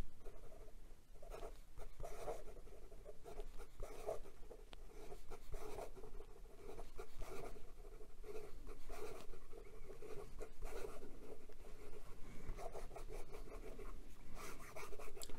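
Steel medium nib of a Pelikan M205 fountain pen writing fast looping cursive on lined notebook paper: a faint, irregular run of nib-on-paper strokes. It writes smoothly with a very wet line, with none of the scratching it gives on upstrokes.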